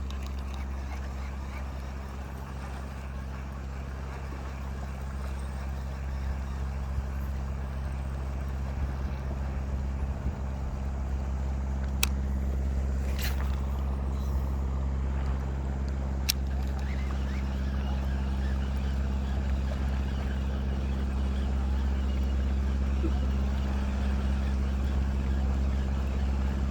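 An engine running steadily at an even speed, a low constant drone, with a few sharp clicks about halfway through.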